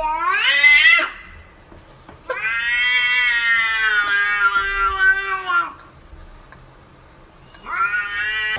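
Domestic cat giving three long, drawn-out meows: the first rises in pitch and ends about a second in, a much longer one lasts over three seconds, and a third starts rising near the end.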